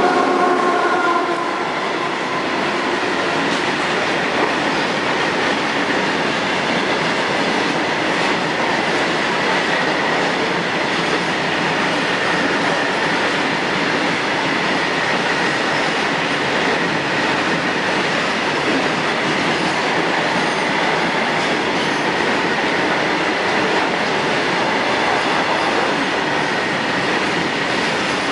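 A WAG-9 electric locomotive's horn cuts off about a second in, then a loaded rake of BOXN coal wagons rolls past at speed: a steady clatter of wheels on rail with a faint high ringing tone from the wheels.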